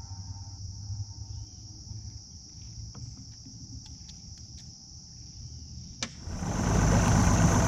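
Insects droning steadily at a high pitch over a low rumble, with a few faint clicks a few seconds in. About six seconds in a click is followed by a much louder rumble and hiss that lasts to the end.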